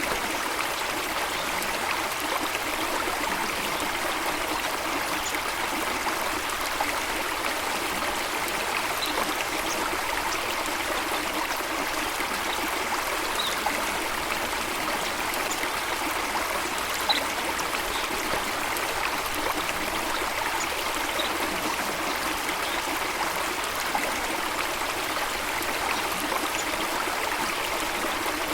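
A steady rush of running water, with faint short high chirps from birds now and then.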